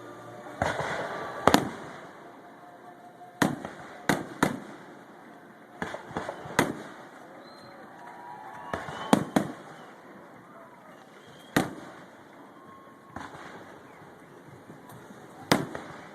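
Aerial fireworks bursting: about a dozen sharp booms spread unevenly, some coming two or three in quick succession, each followed by a short rumble.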